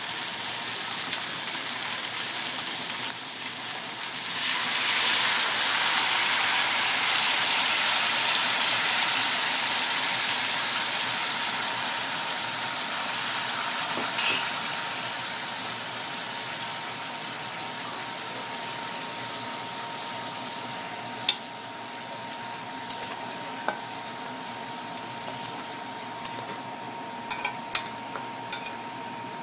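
Red wine sizzling as it hits a hot stainless steel pot of seared beef short ribs. The hiss swells about four seconds in, then slowly dies down, with a few light clicks near the end.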